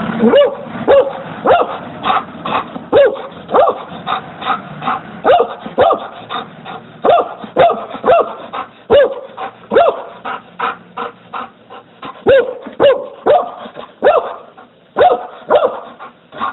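A medium-sized dog barking repeatedly, short barks coming one or two a second.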